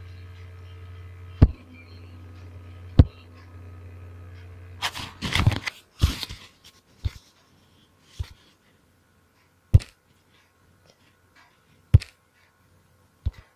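Handling noise on a phone: a low steady hum, sharp knocks every second or two, and a brief burst of rubbing on the microphone about five seconds in. After that burst the hum is gone and only the scattered knocks remain.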